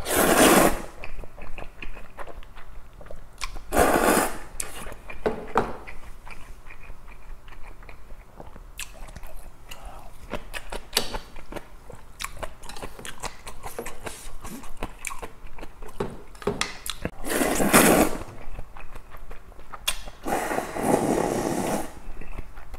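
Close-up eating sounds of cold soybean noodle soup: four loud slurps of noodles and broth, the last and longest one near the end as the broth is drunk from the bowl, with steady small chewing clicks in between.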